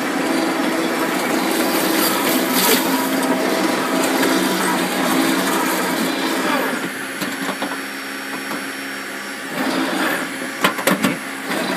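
Motenergy ME1004 brushed DC motor driving a converted Craftsman lawn tractor, with a steady electric whine over the rattle of the drive. It eases off about seven seconds in, and a few sharp knocks follow near the end.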